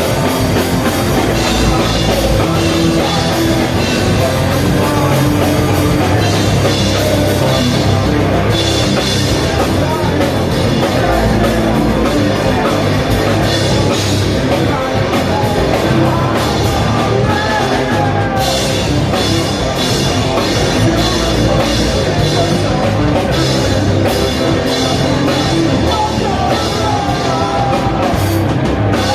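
Rock music with a drum kit and singing.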